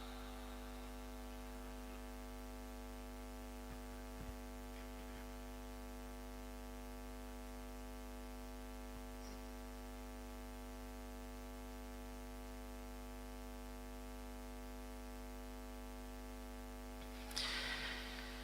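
Steady electrical mains hum, a low buzz with a stack of even tones. A short faint burst of noise comes near the end.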